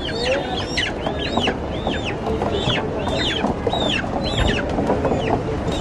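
Live broiler chickens calling repeatedly: short high calls, each rising and falling, about two a second and sometimes overlapping, over a steady clatter of background noise.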